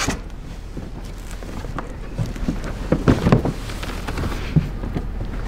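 Rummaging in a cardboard shipping box: cardboard flaps and packing material rustling, with a few knocks as the boxed parts inside are moved, the loudest about three seconds in.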